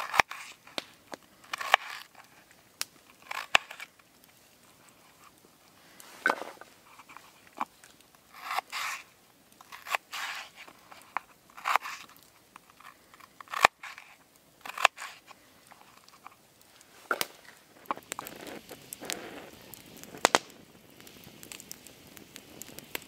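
Knife blade slicing and cubing a raw potato on a wooden chopping board: irregular crunching cuts, each ending in a light knock on the board. For the last few seconds, a wood fire crackling.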